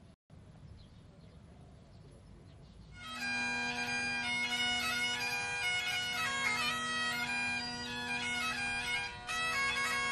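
Faint background at first, then bagpipes start about three seconds in, playing a tune over a steady drone.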